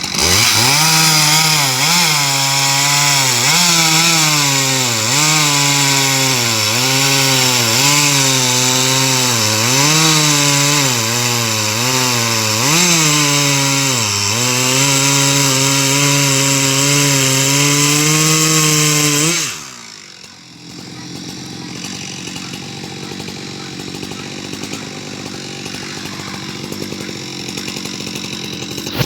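Husqvarna 372 XP two-stroke chainsaw fitted with a carbide-tipped chain, running at high revs and cutting wood, its pitch dipping and recovering every second or two as the chain takes the load. About two-thirds of the way through it drops back to a much quieter idle.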